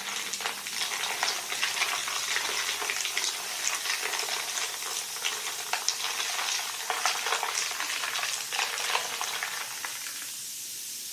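Carbonated drink fizzing, a dense crackle of bursting bubbles that slowly fades and falls away near the end.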